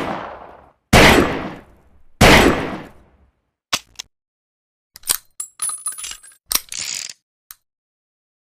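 A cheap Saturday-night-special revolver fired twice about a second apart, each shot with a long ringing tail. Then two light clicks and a quick run of metallic clicks and clinks as the revolver's action is worked.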